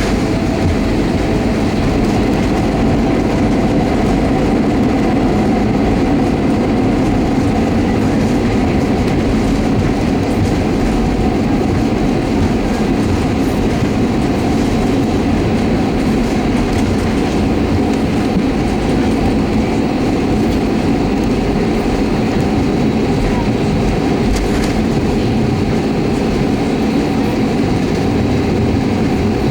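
Airbus A320-200's IAE V2500 turbofan engines and rushing air during landing: a loud, steady rumble that holds even throughout, with a faint steady whine riding on it.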